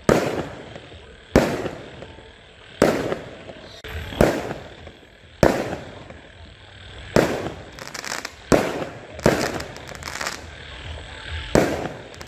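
Fireworks bursting one after another, a sharp bang roughly every second and a half, each trailing off. About two-thirds of the way in comes a quick run of smaller crackling pops.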